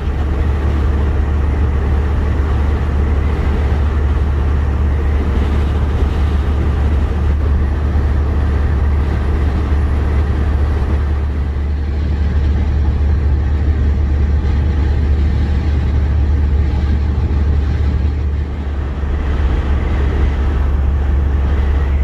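Semi truck driving at highway speed: a steady low drone of engine and road noise that holds even throughout, dipping slightly twice.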